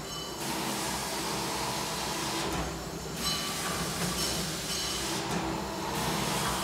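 Steady mechanical noise: a low rumble with thin, high metallic squealing tones above it that fade out twice and come back.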